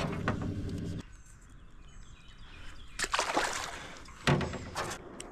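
Small gas boat motor idling with a steady hum that stops abruptly about a second in; then a splash in the water around three seconds and a sharp knock just after four seconds.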